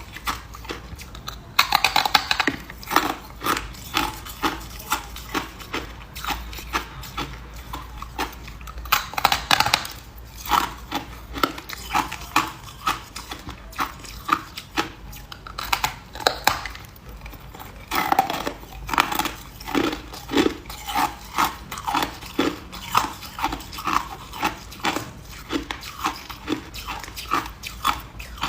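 A person chewing ice, crunching at a steady rhythm of about two a second, with a few louder, denser bursts of cracking.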